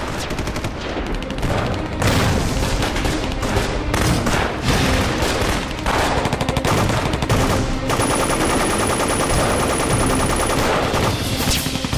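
Dense battle gunfire: light machine guns firing rapid, sustained bursts, shots following each other too fast to count.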